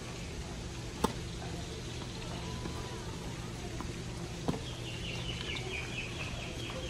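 Tennis ball struck by rackets during a rally: a sharp hit about a second in, fainter hits in the middle and another sharp hit about four and a half seconds in, over a steady low hum.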